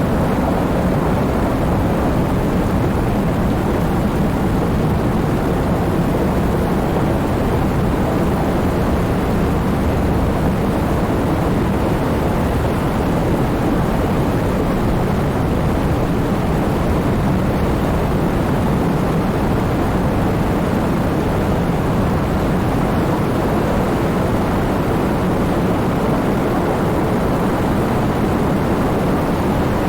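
Heavy rain falling in a steady, unbroken downpour, its sound weighted toward the low end with no single drops or claps standing out.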